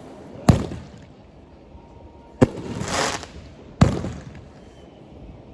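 Fireworks going off: three sharp bangs about a second and a half apart. A short hissing burst swells up right after the second bang.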